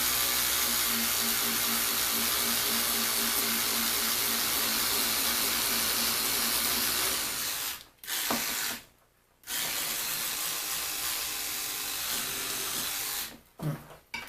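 Rewired electric toothbrush motor buzzing steadily while its brush scrubs metal, cutting out twice as the switch is released and pressed again. The running sounds wrong to the owner, who suspects the added voltage regulator.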